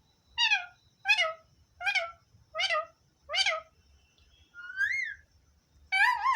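Pet parrot calling: five short pitched squawks in a quick row, then a single whistle that rises and falls, then another call near the end.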